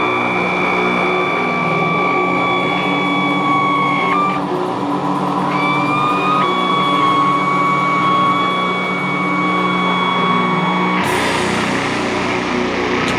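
Live doom metal: distorted electric guitars droning with held, high-pitched feedback tones, which break and shift pitch about 4 and 6 seconds in. About 11 seconds in, a wash of noise comes in over the drone.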